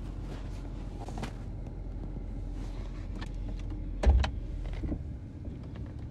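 Low steady rumble inside a car, with scattered small clicks and one heavy thump about four seconds in, after which the rumble drops away.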